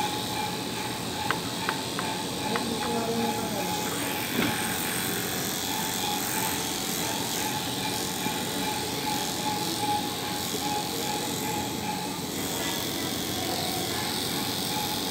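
Corded electric pet clippers running with a steady, constant hum while clipping a dog's fur.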